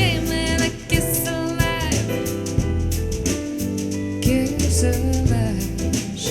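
Soul-jazz music played back through an in-ear monitor: a drum kit and bass under a bending sung or horn-like melody line.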